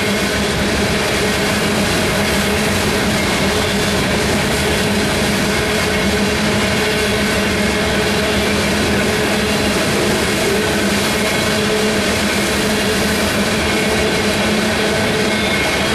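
Covered hopper cars of a freight grain train rolling steadily past: a continuous rumble of steel wheels on rail with a steady low hum.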